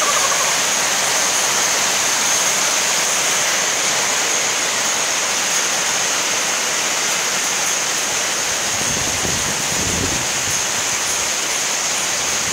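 Heavy thunderstorm downpour: a steady hiss of torrential rain pelting a flooded paved driveway. A low rumbling comes and goes near the end.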